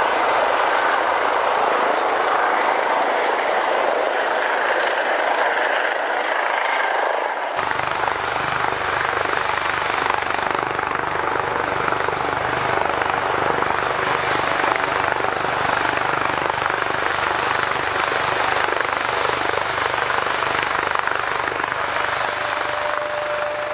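Steady aircraft engine noise at an airport. About seven seconds in, its character changes abruptly and a deeper rumble comes in.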